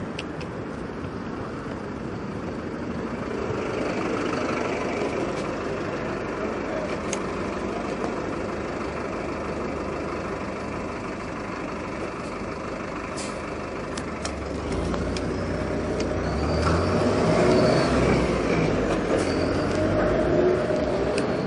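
Street traffic heard from a moving bicycle, including a truck's engine. A deeper rumble swells about three-quarters of the way through.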